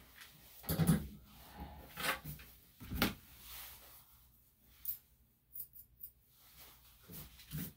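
Grooming scissors snipping a few quick times at a small dog's coat, about five to six seconds in, after a few soft handling thumps and rustles, the loudest about a second in.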